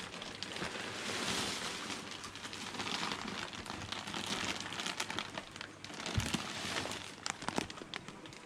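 Packaging crinkling and rustling as bagged fish are handled and lifted out of a shipping box, with many small sharp crackles and a knock about six seconds in.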